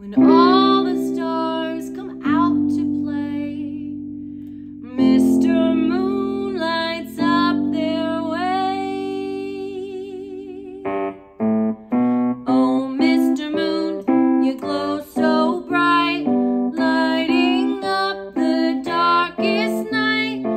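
Piano music: long held chords for about the first half, then a quicker run of repeated notes, with a sung melody over the top.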